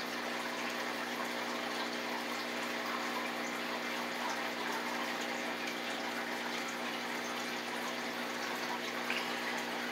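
Steady rush of running water over a constant motor hum, like a small water pump running.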